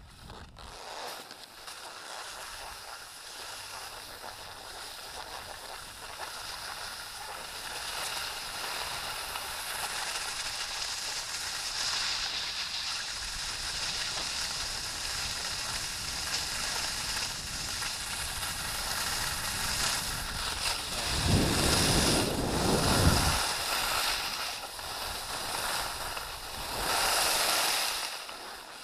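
Wind rushing over a helmet or body-mounted action camera and the hiss of sliding over packed snow on a fast descent of a groomed ski run, building as speed picks up. A deeper buffet of wind about three-quarters of the way through and a sharper hiss of a turn near the end.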